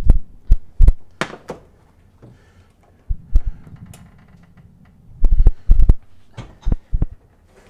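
Knocks and clunks of kitchen handling at an electric range and its oven: a few sharp knocks at the start, a brief low rumble about three seconds in, then heavy clunks around five and a half seconds and lighter knocks after, as the oven is opened for a tray of vegetables.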